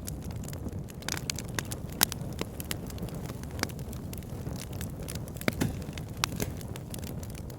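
Campfire burning: a steady low rumble with frequent, irregular sharp crackles and pops from the burning wood. The loudest pop comes about two seconds in, with another cluster about five and a half seconds in.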